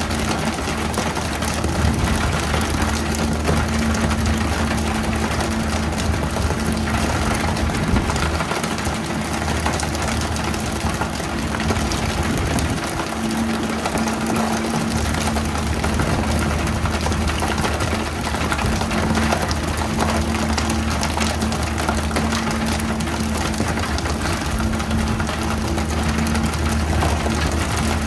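A boat's engine running steadily with a low, even hum, under a constant loud hiss of noise.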